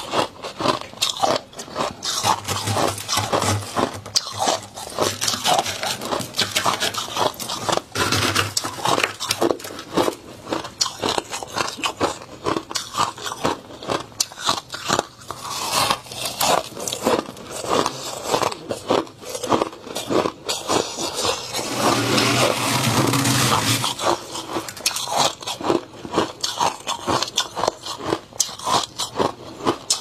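Thick freezer frost being bitten and chewed close to the microphone: a rapid, irregular run of crisp crunches, with a denser, more continuous stretch of crunching a little past two-thirds through.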